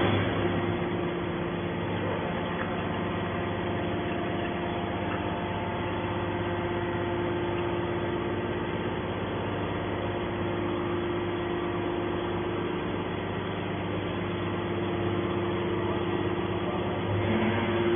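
Scrap metal baler running steadily: a constant machine hum holding a few fixed pitches, with no strokes or bangs.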